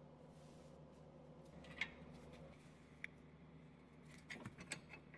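Near silence broken by a few faint, sharp metallic clicks, one about two seconds in, one a second later and a quick cluster near the end: a wrench on a ball joint nut being worked loose.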